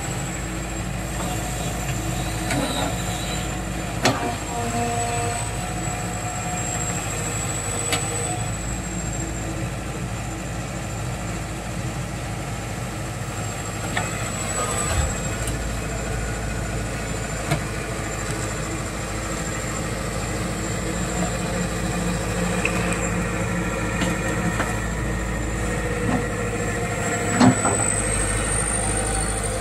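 Yutani SK045 excavator's diesel engine running steadily while it loads logs onto a trailer, with a thin high whine over the hum. Occasional sharp knocks of logs being handled come through it, the loudest near the end.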